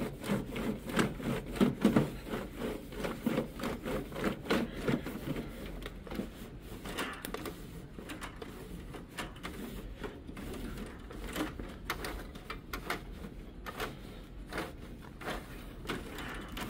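Microfiber cloth wiping the plastic paper path inside a Canon DR-G2140 document scanner, cleaning dust off the feed area and its paper-detection sensors. Quick rubbing strokes with light knocks, about two to three a second, that thin out after about six seconds.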